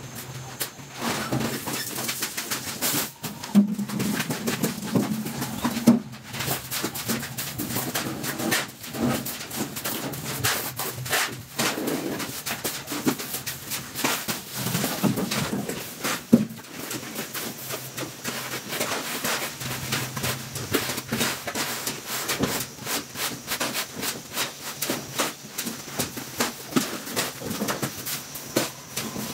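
Hand trowel scraping and tapping on a wet cement floor screed in quick, irregular strokes, with a pigeon cooing now and then.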